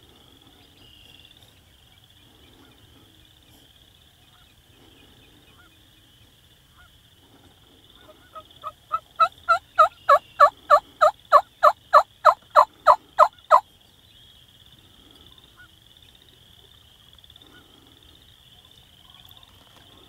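A long run of about eighteen turkey yelps, about three a second, growing louder over the first few and then steady before stopping abruptly.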